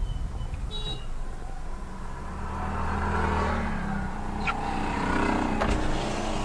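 Motor vehicle engine running on the road over a steady low rumble, its engine note strongest between about two and four seconds in.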